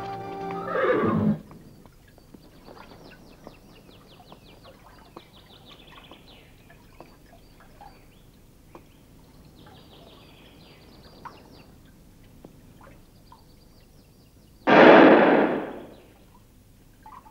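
A horse whinnies loudly once near the end, for about a second. Before it there is only faint outdoor chirping, after a music cue ends about a second in.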